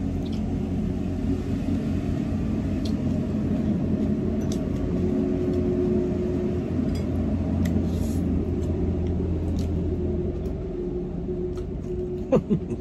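Airplane passing overhead: a steady low rumble with a held hum, swelling in the middle and fading away near the end. A few faint clicks of eating utensils sound over it.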